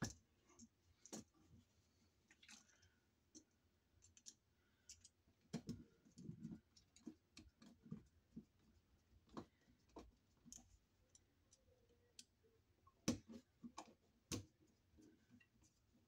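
Faint, irregular clicks and small metal taps as a screwdriver and wires are worked on a wall outlet's terminal screws, with two sharper clicks near the end.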